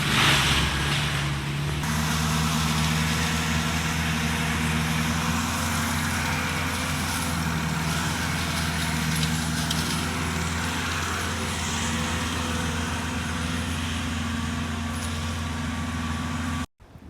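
Skid steer with a mulching drum attachment running steadily. Its engine note shifts about two seconds in, and the sound cuts off abruptly near the end.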